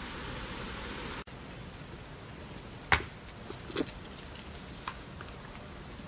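Young goats butting heads: one sharp knock about three seconds in, then a lighter knock and a few small ticks. A steady rushing noise cuts off suddenly about a second in.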